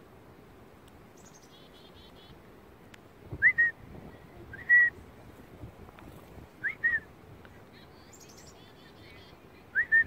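Bird calls: four short, loud whistled notes, each a quick upward sweep that levels off, some in quick pairs. Between them, twice, a chickadee gives fainter, higher chick-a-dee-dee calls.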